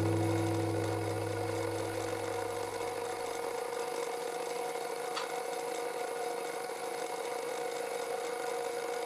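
Electric drive motor of a homemade milling setup running with a steady whine as the part in the vise is worked under the end mill, with one sharp click about five seconds in.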